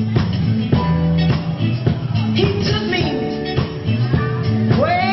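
Live blues-rock band playing with a steady drum beat and a bass line, with a voice singing over it.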